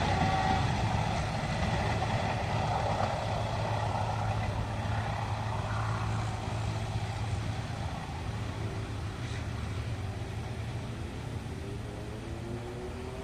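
A passing train's running noise slowly fading as it moves away, over a steady low hum.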